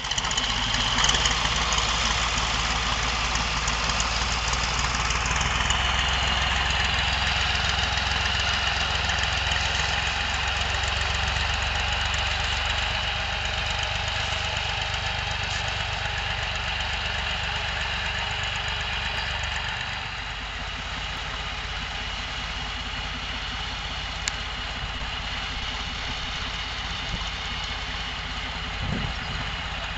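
Tractor engine running as it tows a trailed boom field sprayer, with a constant hiss over it; a little quieter about two-thirds of the way through.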